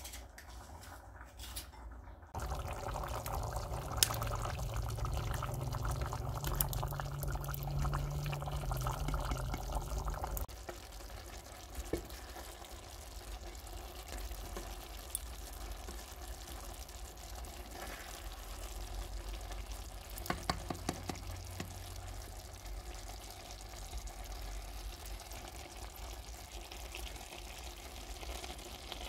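Pot of rice cooking over a wood fire. For about eight seconds early on there is a louder liquid sound of pouring or bubbling with a low hum, then it drops to a quieter steady simmer. Occasional taps of a spatula against the pot come through as it is stirred.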